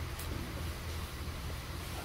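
Steady low background rumble with a hiss over it, and one faint click about a quarter of a second in.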